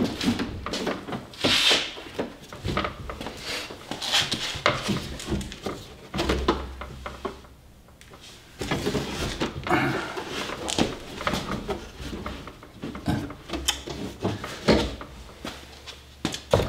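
Irregular clicks, knocks and rubbing scrapes of hands working on a pickup truck's door, handling the plastic trim panel, its clips and the parts inside.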